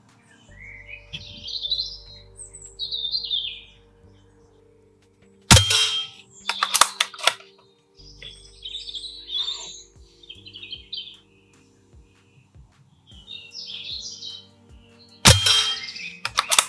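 Two shots from a Gamo GX40 pre-charged pneumatic air rifle in .177, about ten seconds apart, each a sharp crack followed by a few quieter clicks. Birds chirp throughout.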